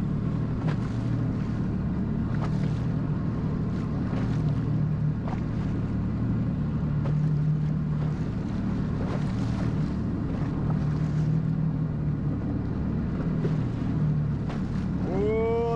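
Jet ski engine running at low speed, a steady drone that rises and falls a little in pitch, with rushing water and wind noise.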